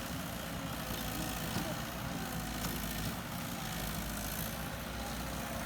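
Heavy-equipment diesel engine running steadily.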